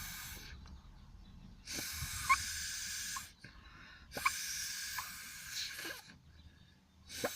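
Breath blown through a drinking straw cut into a V-shaped reed: two long airy hisses and a couple of short puffs, each long blow with only a brief squeak instead of a steady horn tone. The straw reed is barely sounding, perhaps because it is cut a little too short.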